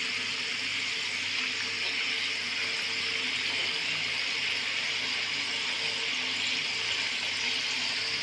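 Potato chips deep-frying in hot oil: a steady, even sizzling hiss.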